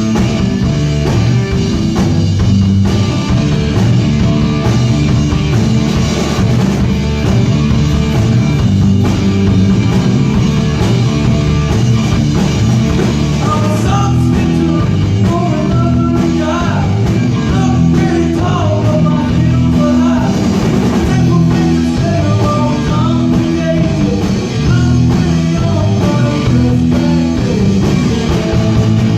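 Loud rock music with drum kit and guitar playing steadily; from about halfway through, a wavering lead melody rises above the band for several seconds.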